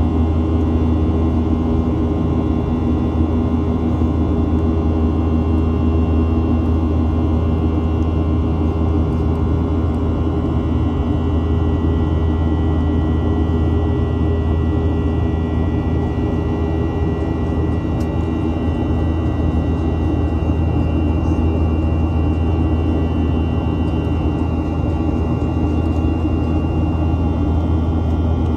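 Jet airliner's engines and airflow heard from inside the cabin during the climb after takeoff: a steady, loud drone with a deep hum and several held tones above it, a few high tones drifting slightly in pitch in the second half.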